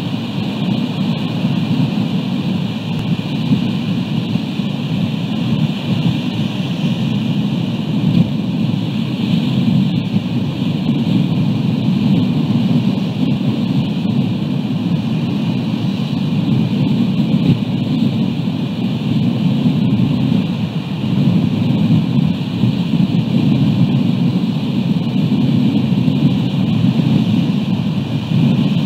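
Wind buffeting an outdoor nest camera's microphone: a loud, unbroken rumble with a steady hiss above it.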